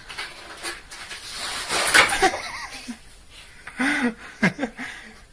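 A person laughing and letting out short cries, over rustling and a few sharp clatters. The loudest stretch is about two seconds in, with a burst of pitched laughs near the end.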